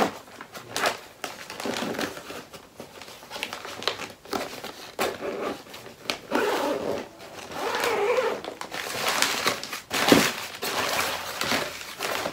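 Fabric lining and zippered divider panel of a hard-shell suitcase rustling and crinkling as they are handled, with scattered sharp clicks and light knocks throughout.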